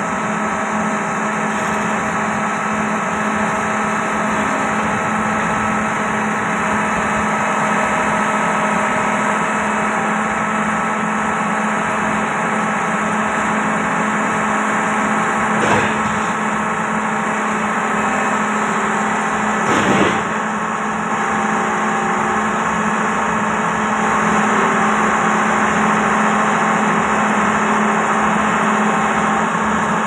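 Diesel engine of a Doosan 500LCV excavator running steadily at idle, with a steady hum. Two brief knocks come a few seconds apart, the second louder.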